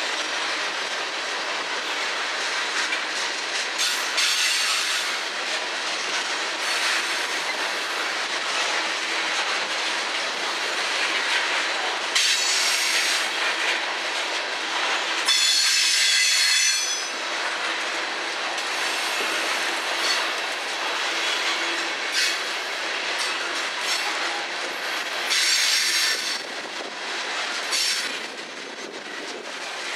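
Loaded coal gondolas of a freight train rolling past, their wheels clicking over rail joints in a steady run of wheel and rail noise. Several bursts of high-pitched wheel squeal cut in, the strongest about halfway through and another near the end.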